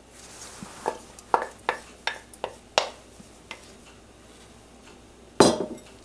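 Kitchenware clinking and tapping against a stainless steel stockpot as diced tomatoes are emptied from a bowl into the soup and stirred in with a wooden spoon. About seven sharp clinks come in the first three seconds or so, then one louder knock about five and a half seconds in.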